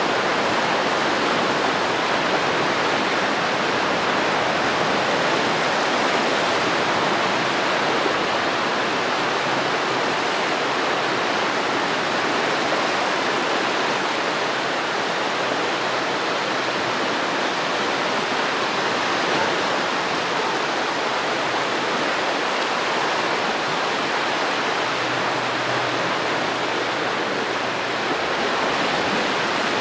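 Baltic Sea surf on a sandy beach: small waves washing ashore, heard as a steady, even rush without distinct breaks.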